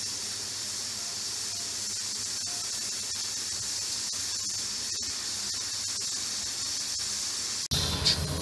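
Steady high hiss of steam escaping past the whistle weight of an aluminium pressure cooker on a gas burner, the cooker up to pressure. Near the end the sound changes abruptly, with a brief metallic clink as tongs lift the whistle weight.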